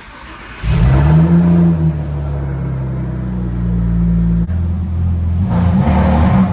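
Porsche Boxster's replacement engine starting: it catches about half a second in with a loud flare of revs, then settles to a steady idle, with a short rise in revs near the end.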